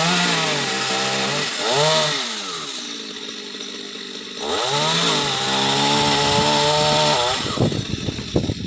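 Chainsaw engine running at high revs, easing off about two seconds in and speeding up again about four and a half seconds in, then running unevenly and choppily near the end.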